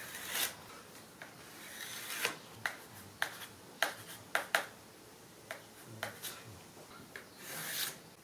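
A long metal straightedge and a large metal square slid over a plywood sheet and set in place: rubbing scrapes about half a second in and again near the end, with a handful of sharp clicks and taps in between.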